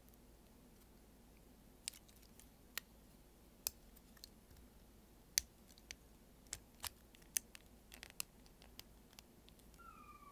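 Yolopark Optimus Primal plastic model kit being assembled: irregular sharp clicks as parts are handled and fitted together, about fifteen in all, with a short falling squeak near the end.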